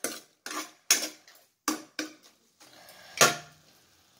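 Spatula knocking against a pan while cooked spinach is stirred: about six separate sharp knocks, the loudest about three seconds in.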